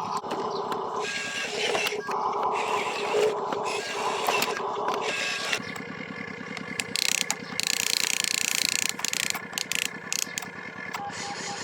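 Motors and gearing of a radio-controlled construction model running: a fast, steady pulsing throughout, with louder stretches of gear noise that come and go.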